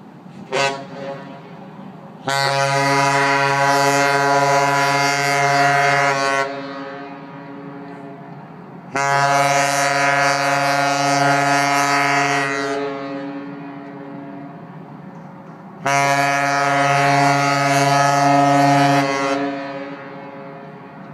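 Cruise ship's horn giving three long, steady, deep blasts, each lasting three to four seconds and echoing away after it stops.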